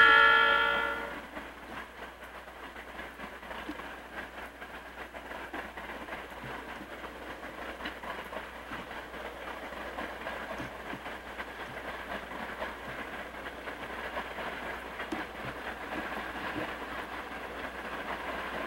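A diesel locomotive's air horn chord ends about a second in. After it comes the steady sound of the Southern Pacific diesel locomotives working uphill toward the camera, slowly growing louder, with a few faint knocks.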